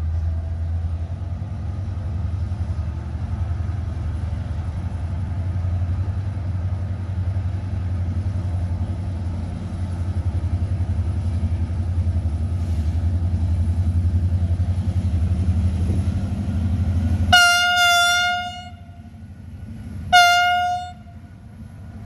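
GM-engined diesel-electric locomotive running with a steady, pulsing low drone, then sounding its horn twice near the end, a longer blast followed by a shorter one.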